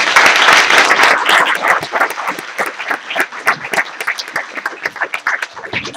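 Audience applauding: dense clapping, loudest in the first second or two, that thins out to scattered claps near the end.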